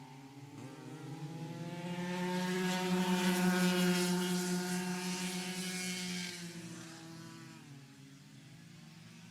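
Go-kart engine running at a steady pitch, growing louder to a peak about three to four seconds in, then fading away.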